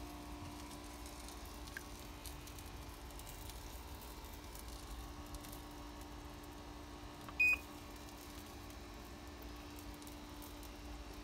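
A single short electronic beep about seven seconds in, over a steady low hum.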